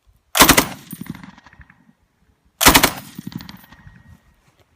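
Machine-gun fire sound effect for a toy gun: two bursts of rapid shots a little over two seconds apart, each trailing off in a fading rattle.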